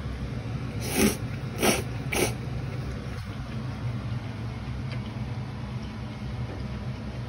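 A steady low mechanical hum, with three short noisy bursts between about one and two and a half seconds in.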